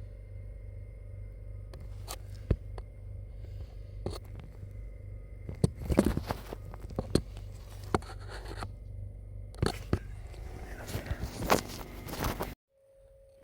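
Handwork on car parts: scattered clicks, knocks and scraping over a steady low hum, which cuts off abruptly near the end.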